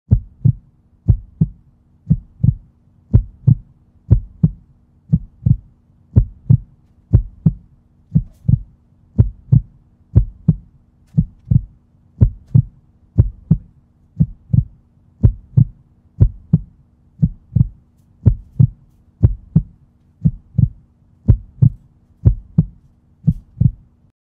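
A heartbeat on the soundtrack: deep thumps repeating evenly and slowly over a faint steady hum, then stopping abruptly.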